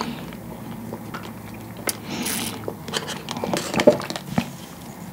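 Drinking mango green milk tea with coconut jelly and tapioca pearls through a wide bubble-tea straw at a close microphone. There is a short airy slurp through the straw about two seconds in, then wet mouth clicks of chewing and swallowing near the end.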